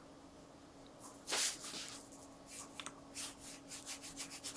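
Watercolour brush rubbing across textured paper: one longer stroke about a second in, then a quick run of short strokes in the second half.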